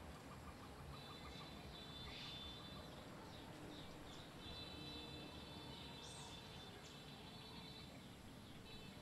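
Faint outdoor background of birds chirping, with a high, steady trilling that comes and goes in spells of about a second and a half.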